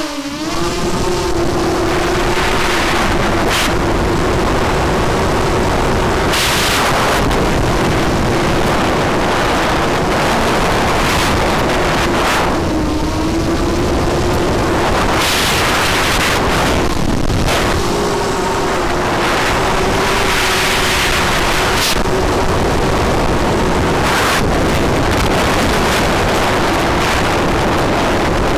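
FPV racing quadcopter's electric motors and propellers droning, heard from the drone's own onboard camera, the pitch wavering slightly as the throttle changes. Wind rushes over the microphone, with several louder bursts of rushing noise.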